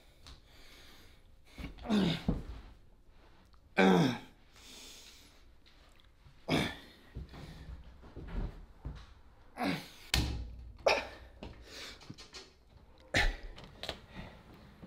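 A series of scattered thumps and knocks, with two louder short sounds falling in pitch about two and four seconds in.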